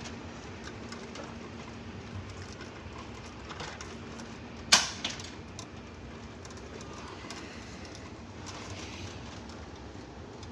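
Wire stripper working on an electrical wire's insulation: a few faint handling clicks, then one sharp snap a little under five seconds in, over a faint steady hum.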